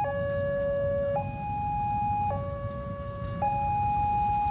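Railway level-crossing warning alarm sounding an electronic two-tone chime, alternating steadily between a lower and a higher tone about once a second while the crossing is closing.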